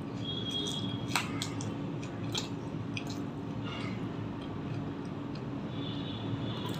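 Close-miked chewing and mouth sounds of someone eating, with a crisp bite into a raw green chilli about a second in and a few smaller clicks after it.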